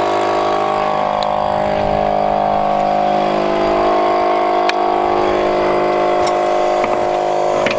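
An air compressor motor running with a steady drone, broken by a few light metallic clicks of tools being handled.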